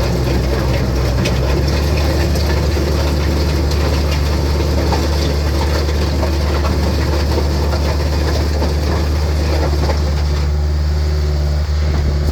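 Caterpillar 236B skid steer's four-cylinder Caterpillar diesel engine running steadily with a low, even drone.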